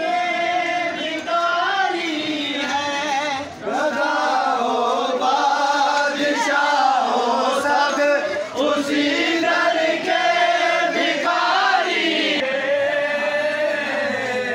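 A group of men's voices chanting a devotional refrain together, a melodic religious chant that goes on without a break.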